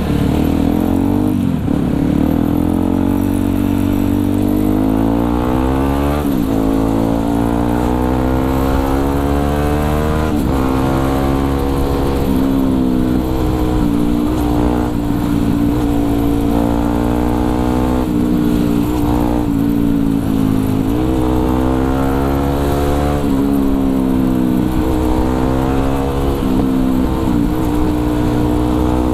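Yamaha WR155R's single-cylinder four-stroke engine running under way. Its pitch climbs as the throttle opens and drops back, several times over.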